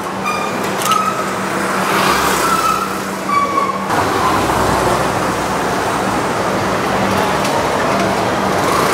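City street traffic noise: a steady wash of engines and tyres from passing vehicles. In the first four seconds short high tones repeat about once a second above it.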